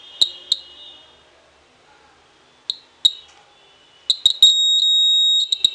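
Homemade earthquake alarm's buzzer beeping as the pendulum bob swinging in the copper-coil switch touches the coil and closes the circuit: a few short high blips, then a run of beeps turning into a steady tone about a second long near the end.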